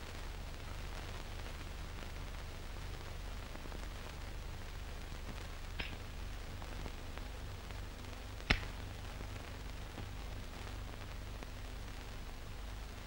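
A steady low hum and faint hiss, the background noise of an old film soundtrack, with two brief clicks partway through, the second a little louder.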